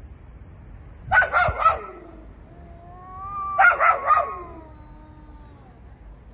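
Dogs barking in two quick bursts of about three barks each, about a second in and again midway. Under the second burst a long drawn-out cry rises and then falls away.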